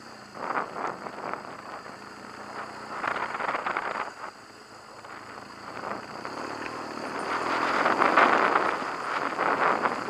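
BMW HP2 Enduro's boxer twin running on a rough dirt trail, heard through wind buffeting on a helmet camera. The noise swells and drops several times and is loudest about eight seconds in.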